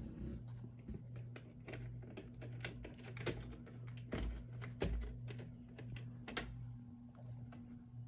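Slats of a horizontal window blind clicking and clattering as a hand pushes them apart: a quick, uneven run of light clicks, densest and loudest through the middle, over a steady low hum.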